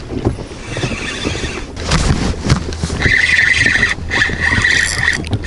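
Fishing reel whirring as line is worked: a steady high-pitched whine starts about three seconds in and breaks off briefly twice. Before that there is knocking and handling noise.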